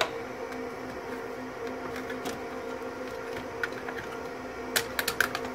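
Light clicks and rattles of a Dell PERC 6/i RAID controller card being worked out of its riser slot, with a quick run of sharp clicks near the end. A steady hum runs underneath.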